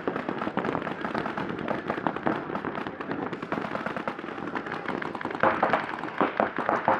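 Many paintball markers firing rapid strings of shots at once, a dense run of overlapping pops that gets louder about five and a half seconds in.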